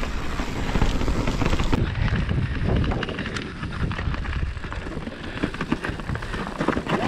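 Mountain bike riding over a dirt trail: tyres rolling on rough ground, with a constant stream of rattles and clacks from the chain and frame over bumps, and a steady low rumble of wind on the microphone.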